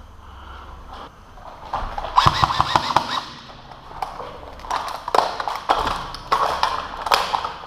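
Airsoft electric gun firing several bursts of rapid shots. The longest burst, about a second and a half, starts just under two seconds in, and shorter bursts follow in the second half.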